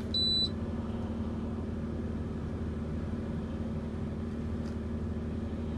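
A single short, high electronic beep from an Insignia portable air conditioner as its remote is pressed to switch it on, over a steady low mechanical hum.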